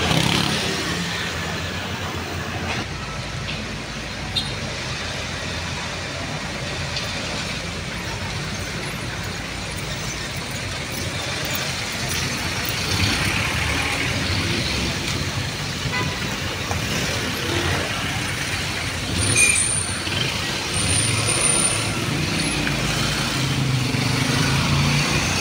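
Street traffic: cars and trucks passing with their engines running, a steady roadway rumble that grows somewhat louder in the second half. A brief high squeal sounds twice about twenty seconds in.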